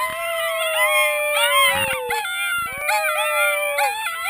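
A group of sled dog puppies howling together. Long howls slide slowly down in pitch, overlapped by shorter, higher wavering cries from the other pups.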